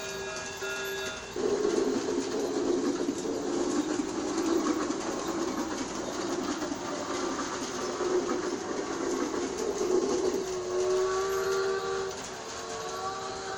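New Bright Railking G-scale toy steam train running with a steady noisy running sound. Whistle tones sound from its electronic sound unit, one ending about a second in and several more near the end.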